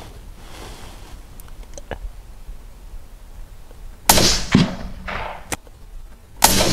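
Hunting rifle shots fired at a fox: sharp, loud cracks, one about four seconds in and another near the end, each with a short ringing tail, with a few fainter knocks between them.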